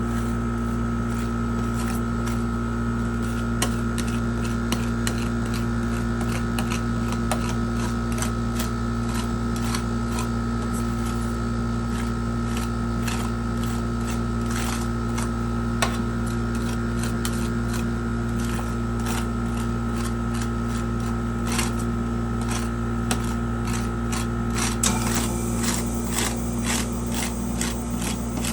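Steady electric hum of a rolled ice cream cold plate's refrigeration unit, with metal spatulas tapping and scraping on the frozen plate; the tapping grows busier near the end.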